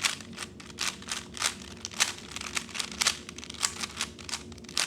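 A 3x3 Rubik's Cube being turned quickly by hand, its layers clicking as they snap into place several times a second in an irregular run.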